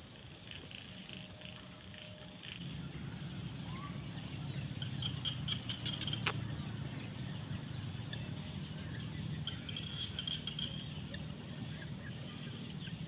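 Evening insect chorus: a steady high-pitched drone of crickets and other insects, with bursts of rapid chirping about five seconds in and again near the end. A low hum runs underneath from a few seconds in, and a single click comes about six seconds in.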